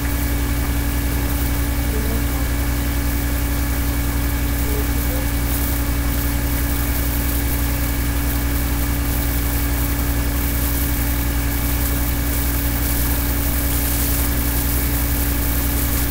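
A steady, unchanging hum with a strong low drone and a few faint high whining tones.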